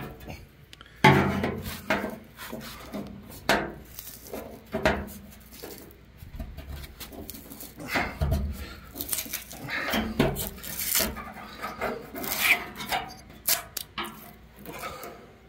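Screwdriver prying and scraping at a glued-on aluminum flag emblem: an irregular run of scrapes, clicks and knocks as the adhesive lets go, with a sharp knock about a second in.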